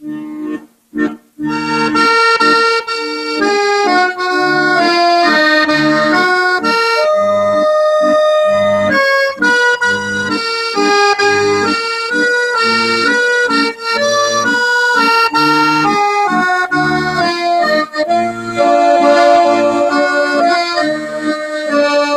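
Instrumental background music: a few short clipped notes, then a continuous melody from about a second and a half in.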